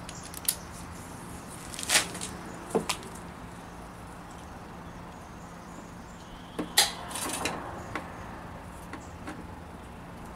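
A few sharp metal clicks and knocks, with a short scraping rattle about two-thirds of the way through, as a torque wrench and socket are fitted to the oil drain plug under the pressure washer's engine. A steady low hum runs underneath.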